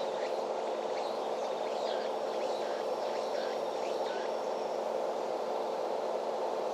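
Outdoor farm ambience: a steady hum with small birds chirping over it in short, quick calls, which fade out a little after the middle. A thin high whistle-like tone holds for about two seconds in the middle.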